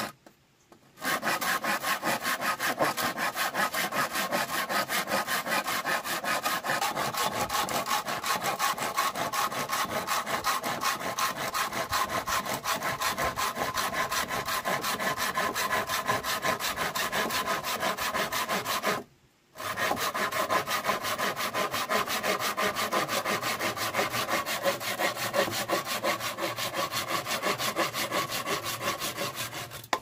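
Hand saw cutting through a thick green bamboo pole in quick, even back-and-forth strokes, with a short pause right at the start and another about two-thirds through. The sawing stops at the very end as the blade comes through the culm.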